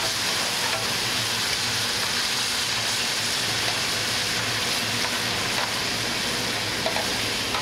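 Chicken stock and broccoli rabe sizzling in a hot sauté pan over a gas flame, with a metal spoon stirring through it. A steady, even hiss.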